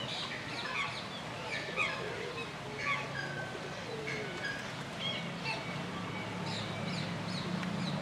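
Mixed chorus of garden birds: many short, high chirps and calls overlapping throughout, over a steady low hum.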